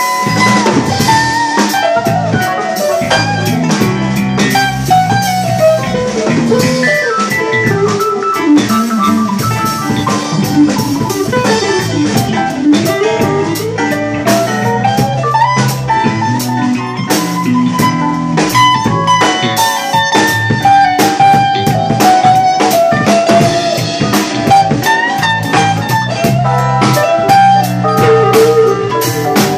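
A live electric blues band: an electric guitar plays a lead line full of bends and slides over a drum kit, with a bass guitar underneath.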